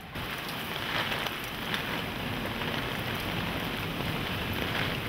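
Steady, heavy rain pouring down in a tropical storm.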